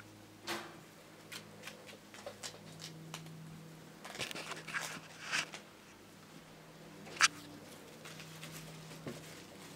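Dry autumn leaves rustling and crackling under a kitten's paws, in scattered sharp crunches with a busier spell about four to five seconds in and the loudest single crackle about seven seconds in.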